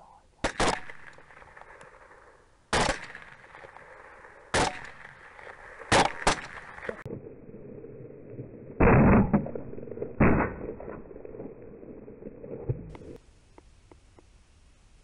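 Rifle shots fired at night at hogs and other animals through a thermal scope: about six sharp cracks in the first six seconds, each with a short echo. Then, after a cut, two louder shots around nine and ten seconds in.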